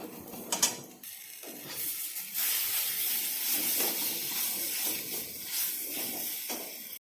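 Ground sesame paste and chopped onions sizzling in hot oil in a frying pan, with a spatula scraping and stirring against the pan. A sharp clink about half a second in, and the sizzle grows louder from about two seconds in.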